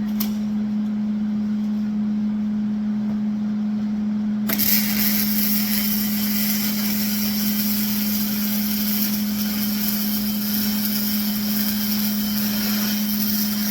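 A steady low machine hum, joined about four and a half seconds in by a loud, even hiss that carries on, from metal fabrication work in the shop.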